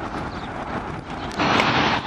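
Jet airliner noise: a steady low rumble that jumps abruptly, about one and a half seconds in, to a much louder rush of jet engines from an airliner passing low on final approach.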